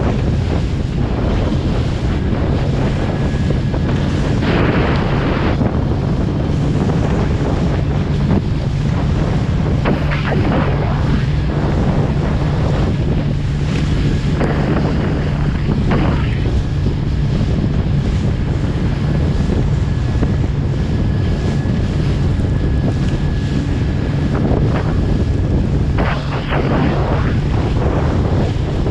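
A small fishing boat's engine running steadily under heavy wind buffeting the microphone, with a louder rush of water and spray a few times, about 5, 10, 15 and 26 seconds in.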